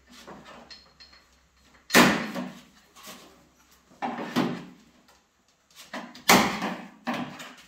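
Trim strip being pried off a steel Volvo 240 boot lid, four sharp clanks as the tool levers it and the clips snap loose, the loudest about two seconds in and again near the end. The trim is held on firmly.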